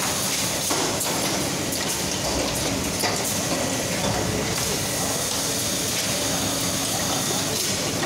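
Steady din of a compressor assembly line: conveyors and machinery running, with a high hiss and a few sharp metal clicks.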